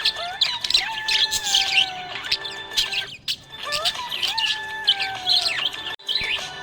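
Budgerigars chirping and chattering rapidly, with high twittering notes over gliding whistled tones and a short lull about three seconds in.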